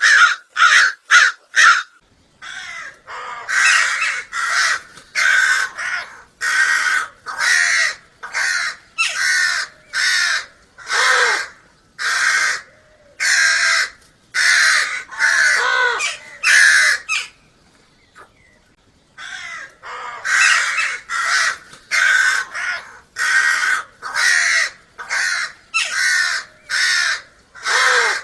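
Crows cawing: a long series of short, harsh caws, about one to two a second, with a pause of about two seconds a little past the middle.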